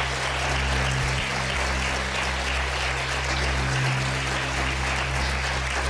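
Studio audience applauding steadily, over a low, sustained music drone.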